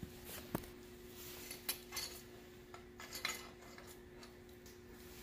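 Scattered light metallic clinks and taps as the steel tube of a motorcycle engine guard is handled and lined up on its frame mounting bolt, over a faint steady hum.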